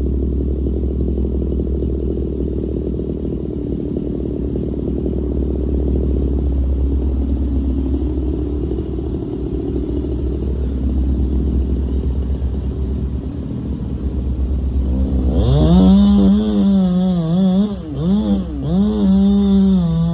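A diesel engine runs steadily. About 15 s in, a louder, higher-pitched engine comes in, revving up and down with a wavering pitch, as if working under load.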